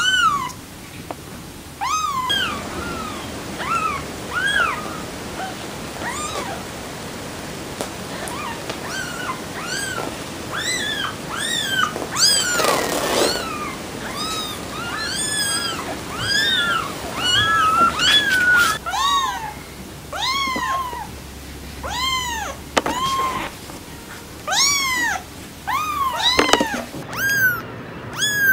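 Young kittens meowing: a long run of short, high-pitched meows, each rising and then falling in pitch, many coming in quick succession, with a short burst of noise about halfway through.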